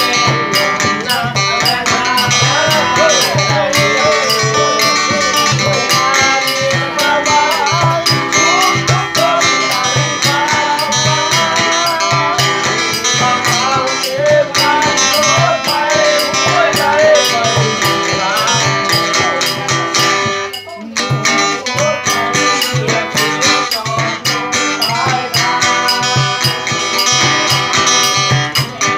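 Two guitars strummed in a steady rhythm, with a man singing a melody over them. The playing drops out briefly about twenty seconds in, then carries on.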